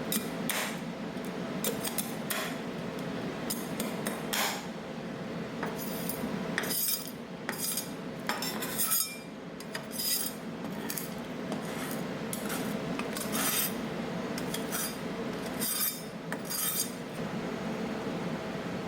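Metal spatulas tapping and scraping on the steel cold plate of a rolled-ice-cream machine in irregular clicks and scrapes, over a steady hum.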